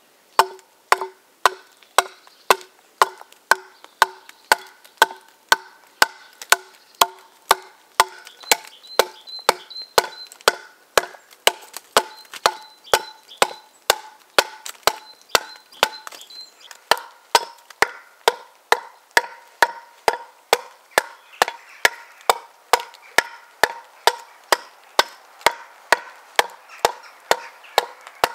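Steady hewing of an ash plank with a hand-forged T-shaped axe (wrought iron body, steel bit): quick, regular chopping blows, about two a second, each leaving a short ringing note from the plank, lower in pitch at first and higher in the later part.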